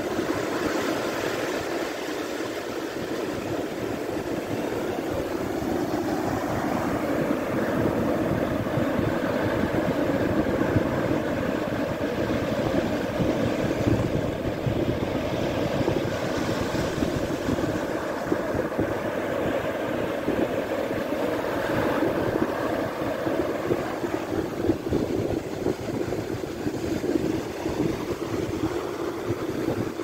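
Sea surf breaking and washing up a sandy beach: a steady, continuous rush of waves.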